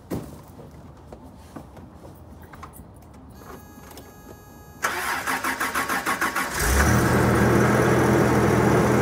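Toyota Odyssey motorhome engine being started: the starter cranks with a pulsing sound for about two seconds, then the engine catches about two-thirds of the way in and settles into a steady idle.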